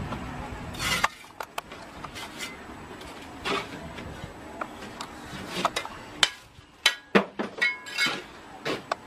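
Sharp clinks and taps of a steel mason's trowel against clay bricks and mortar as bricks are set in place, coming at irregular intervals and closer together in the last few seconds.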